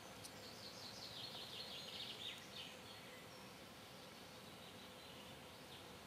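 A songbird singing one quick phrase of rapid short high notes that falls in pitch over about two seconds, faint against a steady outdoor hiss.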